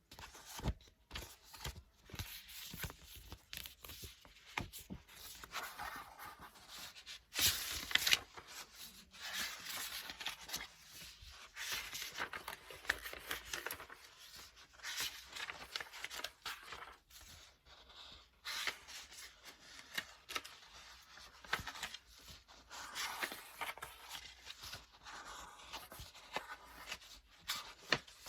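Paper book pages being turned one after another: irregular dry rustles and swishes, with a louder flip about seven to eight seconds in.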